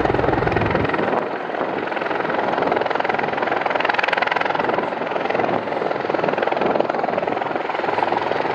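Aircraft in flight overhead, its engine and propeller noise loud and steady throughout.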